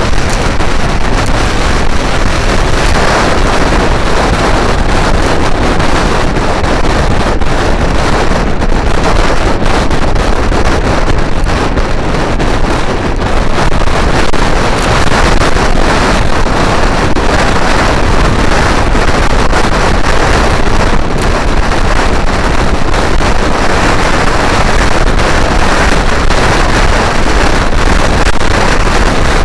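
Loud, steady wind rush buffeting the microphone of a motor scooter under way in traffic, with the scooter's engine drone mixed in underneath.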